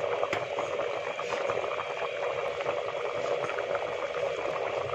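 A pot of khichdi (rice and lentils) boiling hard: a steady bubbling dense with small pops, over a faint steady hum.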